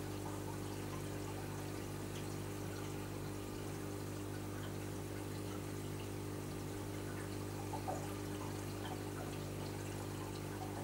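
Reef aquarium's water circulation running: a steady trickle and splash of moving water over a constant low pump hum, with a few faint bubbly crackles.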